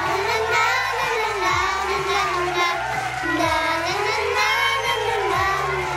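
Children singing along to a pop backing track, with a bass line and deep drum hits under the melody.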